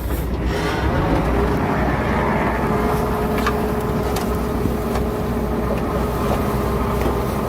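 Heavy earthmoving machine's diesel engine running steadily under load, with a thin steady whine held over the low drone.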